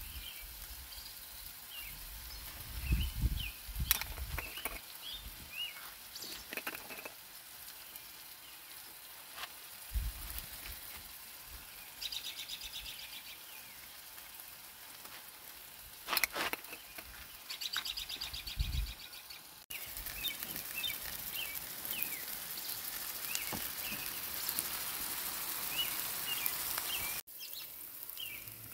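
Small birds chirping over and over, with bacon sizzling on a griddle over a butane camp stove, and a few sharp clicks and knocks.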